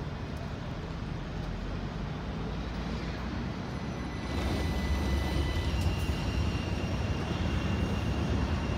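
Class 399 Citylink electric tram-train pulling away, with the whine of its traction motors showing as thin tones that step up in pitch as it gathers speed. Under it runs a low rumble that grows louder about halfway through.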